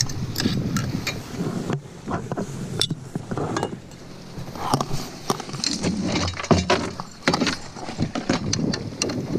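Anchor chain and stainless bow fittings clinking and rattling as the chain is handled by hand at the bow roller: a scatter of sharp, irregular metallic clinks.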